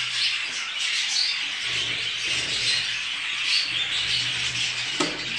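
Budgerigars chattering and chirping continuously, a dense run of short twitters and chirps.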